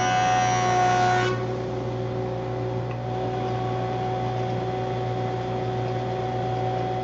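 Jet jointer's cutter head finishing a pass on a board, a loud whine that drops and thins about a second in as the board clears the knives. The jointer motor and dust collector then run on with a steady hum and without cutting.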